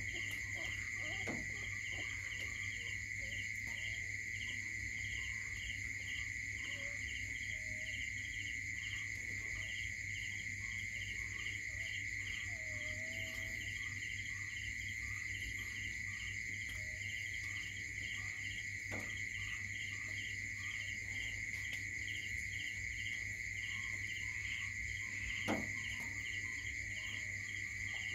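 Insects chirping: a steady high trill with a second insect chirping in a quick even pulse, about two to three chirps a second, over a low steady hum. A couple of faint knocks, the clearest near the end.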